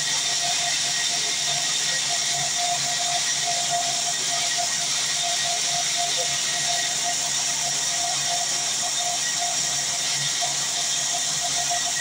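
Vertical band sawmill running, its steel band blade ripping long wooden boards: a steady hissing cutting noise with a faint whine.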